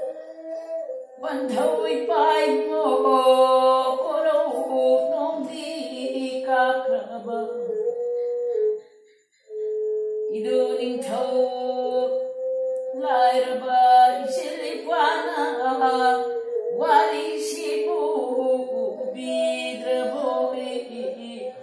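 An older woman singing with a bowed string instrument following her melody. Both stop briefly about nine seconds in, then go on.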